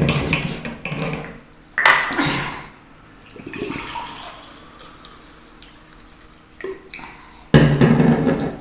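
Close-up mukbang eating and drinking sounds: mouth noises and gulps of liquid in separate bursts with quieter gaps between, the loudest near the end.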